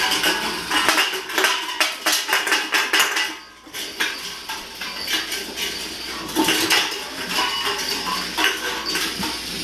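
Metal can on a rope clanking and rattling as it is dragged and jerked across a tile floor, in a long run of irregular clanks.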